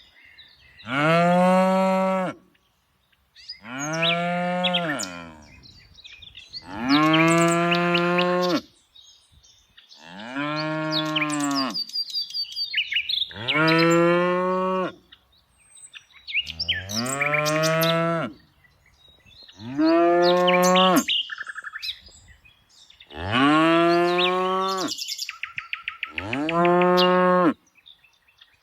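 Cattle mooing over and over: about nine long, drawn-out calls, each one to two seconds, with short pauses between them. Birds chirp faintly in the background.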